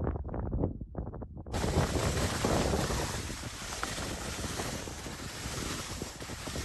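Wind buffeting the microphone: a steady, rushing hiss without any pitch that starts abruptly about a second and a half in, after a brief stretch of a voice.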